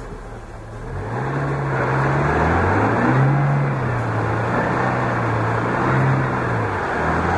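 Chevrolet Niva's four-cylinder engine idling low, then revved hard about a second in and held under load with two further swells in pitch, dropping back near the end. This is the sound of the bellied-out SUV straining to drive out of a deep rut.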